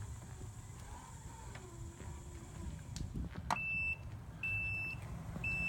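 Mobility scooter's reverse warning beeper (a Vita scooter): after a click about three and a half seconds in, a steady high beep about half a second long repeats about once a second, the alarm that sounds while the scooter is in reverse.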